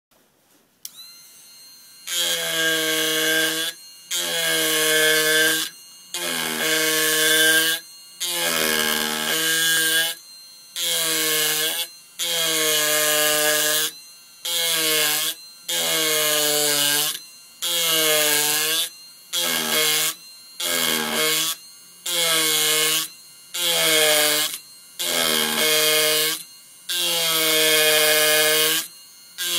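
Tokyo Automac Handcraft Deluxe HCT-30S vibration wood-carving machine buzzing as its 12 mm round gouge cuts into Japanese yew. It comes in repeated strokes of one to two seconds, about fifteen in all, each a steady pitched buzz with a hiss on top, dropping back during short pauses between cuts.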